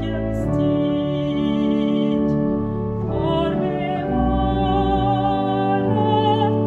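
A woman singing with vibrato, accompanying herself on a church organ playing held chords.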